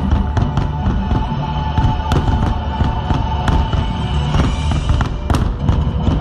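Aerial fireworks shells bursting and crackling over a low rumble, with the show's music soundtrack playing along.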